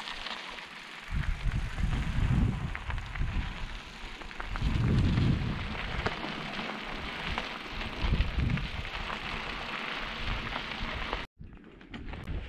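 Mountain bike rolling along a dirt trail: tyres crunching and rattling over gravel and rough ground, with wind buffeting the microphone in low gusts. The sound cuts out for a moment near the end.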